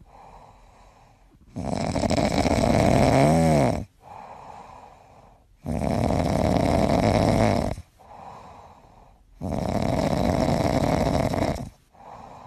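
A sleeping white cat snoring: three long snores about four seconds apart, with softer breaths between them.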